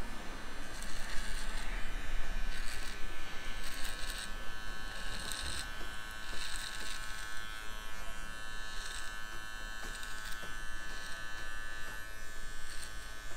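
Electric hair trimmer buzzing steadily as it trims a beard along the cheek and sideburn, with a crisp rasp coming and going every second or two as the blades pass through the stubble.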